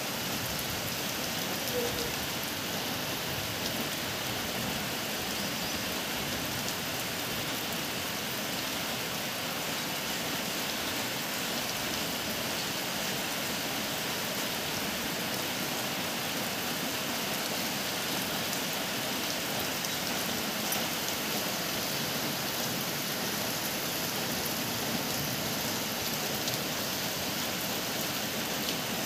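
Steady rain falling, an even hiss that holds without let-up.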